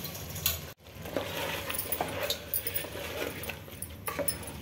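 Wooden spoon stirring soaked basmati rice into chicken masala in a metal pot: scraping with scattered light clinks against the pot. The sound drops out completely for a moment about a second in.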